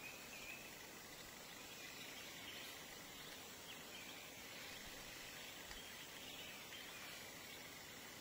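Faint forest ambience: a steady background hiss with scattered short, high chirps.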